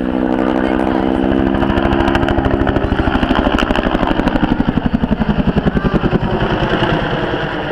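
Bell AH-1 Cobra helicopter flying past. Its turbine and rotor drone drops in pitch as it goes by. Rapid, even rotor blade slap swells and then fades away near the end.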